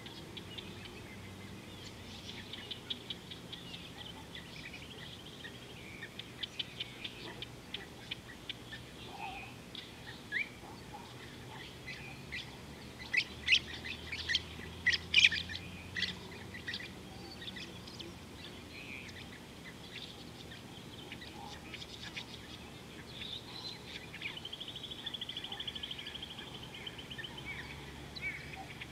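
Wild birds calling around a river: many short, sharp chirps, loudest in a burst about halfway through, and a rapid trill of repeated notes near the end.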